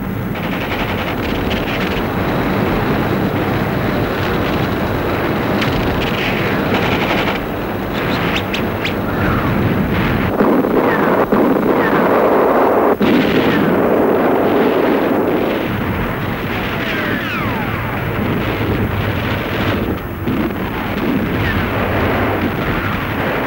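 A dense, continuous din of gunfire and explosions, with a few sharper cracks standing out.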